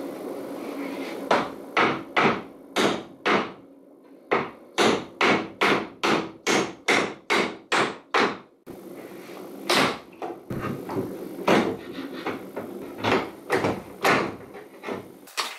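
Hammer blows on the wooden slats of a pallet, each a sharp wooden knock. A few evenly spaced strikes are followed by a short pause and a fast run of about three blows a second, then, after another pause, more irregular strikes.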